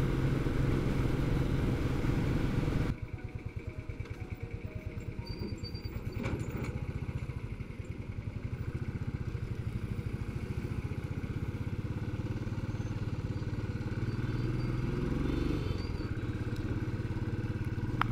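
Motorcycle engine running while riding. About three seconds in the sound drops sharply, and the engine carries on at low revs with an even pulsing beat.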